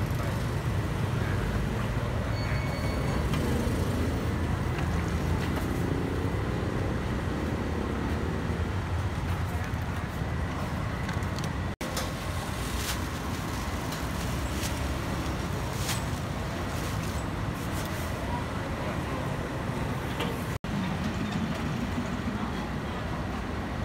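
Street traffic ambience from passing motorbikes and cars, a steady noise with a few sharp clicks. The sound drops out for an instant twice.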